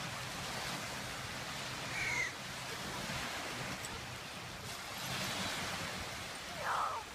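Crow cawing twice, a short call about two seconds in and a louder one near the end, over a steady outdoor hiss.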